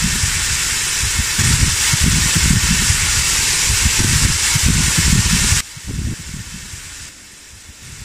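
Minced meat and vegetables sizzling loudly in oil in a cast-iron kazan while a metal skimmer stirs them, with an irregular low rumble underneath. The sizzling cuts off suddenly about five and a half seconds in, leaving a much quieter outdoor background.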